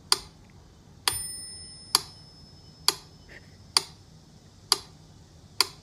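Sharp ticks at an even pace, a little faster than one a second, each with a brief ring. About a second in, one tick is followed by a ringing, bell-like ding that fades over nearly a second.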